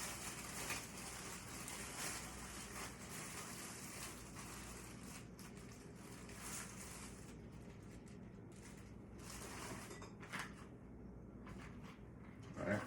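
Faint handling noise as a plunge router is unpacked: rustling packaging with scattered light clicks and knocks of the tool and its parts being moved.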